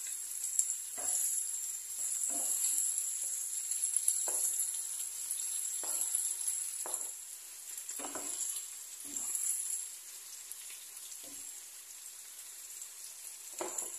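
Chopped onions and peppers sizzling as they fry in oil in a nonstick pan, with scattered knocks and scrapes as chopped tomatoes are scraped in from a cutting board and stirred with a wooden spoon. The sizzling is quieter in the last few seconds.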